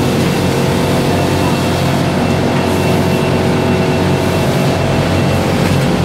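Steady machine hum of a sugar-pack conveyor line and automatic baling machine running, with several steady tones over a constant mechanical noise.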